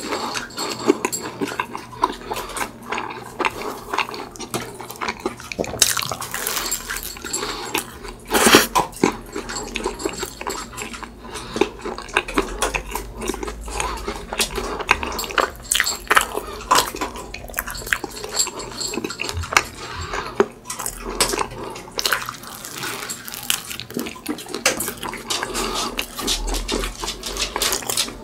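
Close-miked eating of a croffle with whipped cream and chocolate syrup: irregular crisp crunches and wet chewing smacks, one after another.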